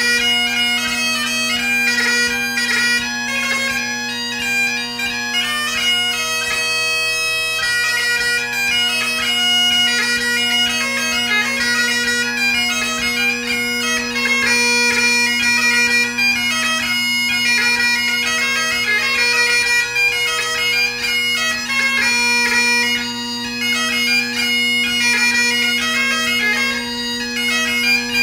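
Great Highland bagpipe played solo: the steady drones sound without a break under a quick-moving chanter melody in a light-music (ceòl beag) tune.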